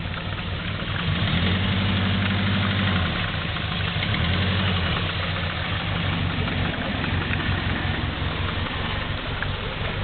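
Subaru GL turbo's EA82 flat-four engine running with a loud rod knock, the sign of a worn connecting-rod bearing in an engine on its way out. The engine note picks up about a second in and again around three and a half seconds in, then settles.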